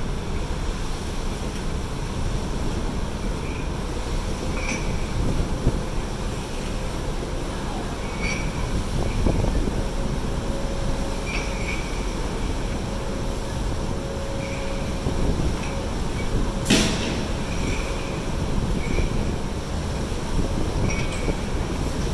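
Steady low rumble of wind and churned sea water as a cruise ship manoeuvres alongside a pier. Short faint high chirps recur every few seconds, and a single sharp click comes about three-quarters through.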